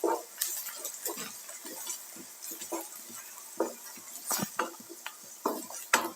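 A spoon stirring and scraping in a pan of frying onions as ground spices are mixed in, with irregular clinks against the pan, a few louder ones in the second half.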